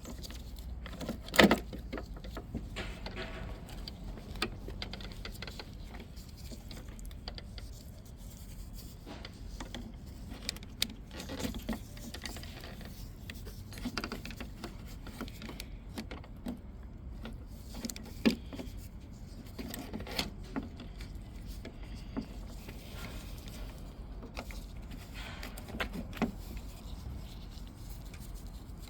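Scattered clicks, clinks and knocks of metal and plastic parts being handled inside a truck door while the exterior door handle assembly is worked loose, the loudest knock about a second and a half in, over a steady low hum.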